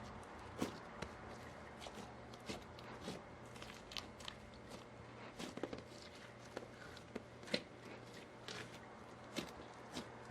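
Slime being kneaded and squished by hand, giving irregular clicks and pops a few times a second.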